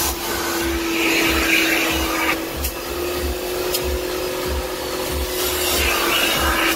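Karcher Puzzi 10/1 spray extractor's vacuum motor running with a steady whine while its hand upholstery nozzle is drawn over cloth seat fabric. The suction hiss grows louder twice: about a second in, and again near the end.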